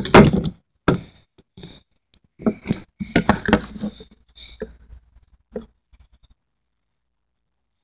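Handling noise of a phone camera being moved and set in place: a run of irregular rubs, scrapes and knocks on the microphone, loudest at the start, that stops about six seconds in.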